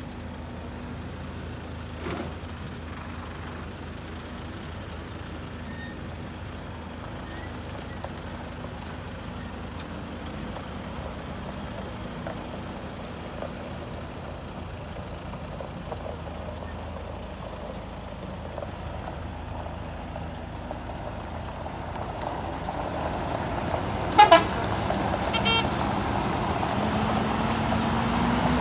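Tractor-trailer's diesel engine running at low speed while it manoeuvres, growing louder as it nears. Near the end comes a short horn toot and a weaker second one about a second later, and the engine then rises in pitch as it picks up.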